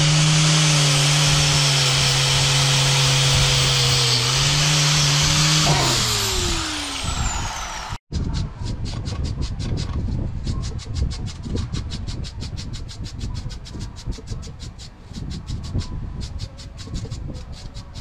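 Electric angle grinder with a sanding disc running steadily against a steel part, then switched off about six seconds in, its pitch falling as the disc spins down. After that, fast repeated scratching strokes of a brass wire brush scrubbing rust off a small metal chain by hand.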